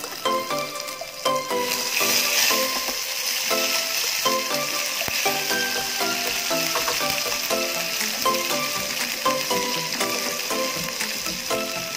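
Food sizzling as it fries in hot oil, a steady hiss that grows stronger about two seconds in, under background music.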